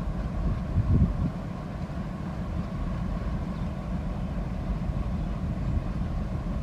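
Steady low rumble of a passenger train in motion, swelling briefly about a second in.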